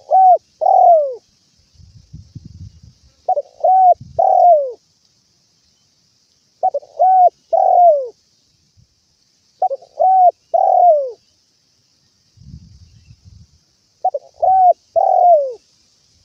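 Spotted dove cooing: a repeated phrase of two short coos and a longer one that falls in pitch, given five times, about every three to four seconds. Two brief low rumbles and a faint steady high hiss lie underneath.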